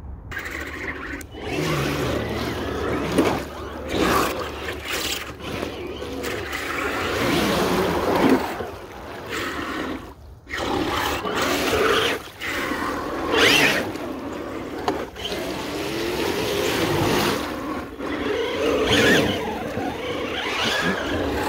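Muddy water splashing and churning as a radio-controlled 4x4 mud truck drives through it, in irregular surges.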